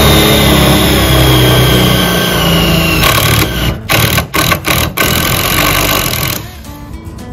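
Makita cordless drill running under load as a twist bit bores through a steel bracket. The motor sound is steady at first, then stops and restarts a few times in quick pulses, runs on again, and stops near the end.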